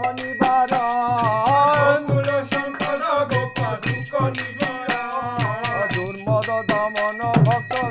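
Devotional bhajan music: a man singing a melody over a steady beat of drum strokes and small hand cymbals ringing.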